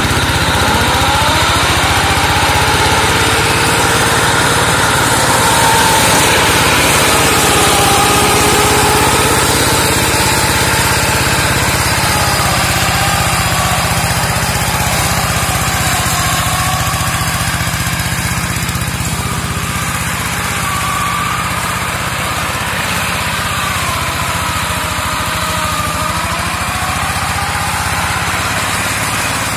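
Engine of a two-wheel walk-behind hand tractor rigged as a land-clearing mower, running continuously under load as it cuts through brush. Its pitch rises and falls slowly as the load changes.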